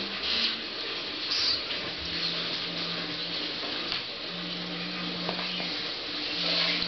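Steady hissing room noise with a low hum that comes and goes, and a couple of brief rustling sounds in the first second and a half.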